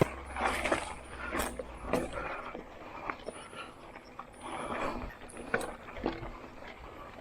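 GT Avalanche mountain bike ridden over a rough dirt trail: irregular knocks and rattles as it goes over bumps, over a rough rushing haze.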